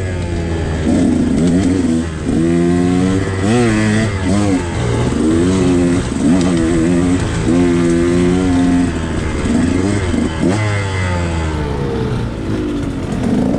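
KTM 125XC's two-stroke single-cylinder engine under way, its pitch holding steady for stretches and rising and falling several times as the throttle is worked and gears change.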